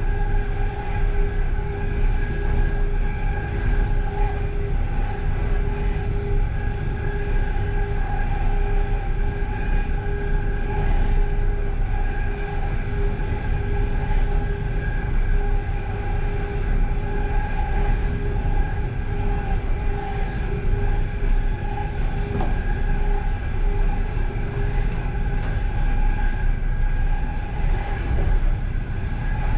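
Passenger train running steadily at speed, heard from inside the last carriage: a constant low rumble of wheels on rail with a steady whining tone over it.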